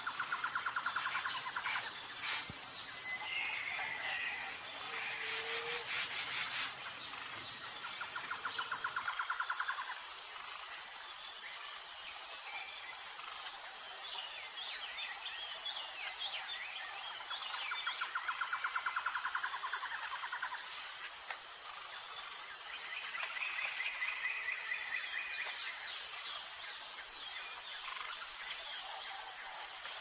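Forest ambience: insects keep up a steady high, pulsing drone while birds call. A fast trill comes three times, near the start, about nine seconds in and around eighteen seconds in, and higher chirping phrases come a few seconds in and again after twenty seconds.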